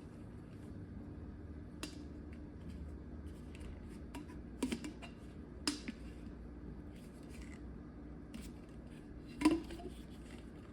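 Plastic parts and lid of a countertop water filter pitcher being handled: scattered light clicks and taps, the loudest near the end, over a faint steady hum.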